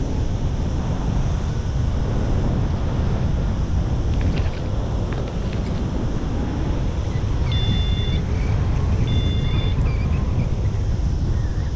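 Airflow buffeting a paraglider pilot's camera microphone in flight, a loud, steady low rumble. Two short high beeps sound about a second and a half apart, some eight seconds in.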